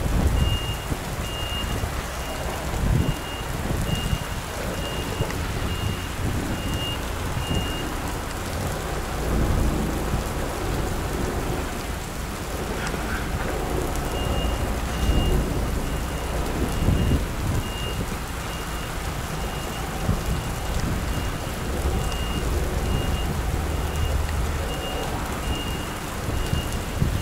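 Heavy rain pattering on a truck cab and a camera mounted outside it, over the low rumble of the diesel truck reversing. A high reversing alarm beeps about one and a half times a second. It pauses for several seconds in the middle, then starts again.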